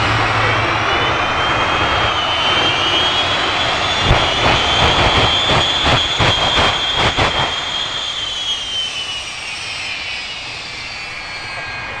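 Shockwave jet truck's three turbojet engines running on afterburner, a loud jet noise with a high whine and a rapid run of sharp pops between about four and seven and a half seconds in. From about eight seconds the whine falls in pitch and the noise dies down as the engines wind down.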